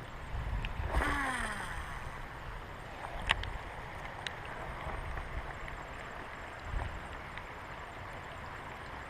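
Rain falling as a steady hiss, with a short pitched sound sliding down in pitch about a second in and a sharp tap a little after three seconds.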